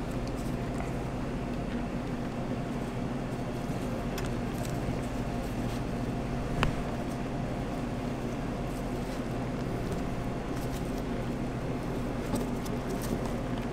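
Steady low machine hum from kitchen equipment, with a few faint clicks and one sharper click about halfway through.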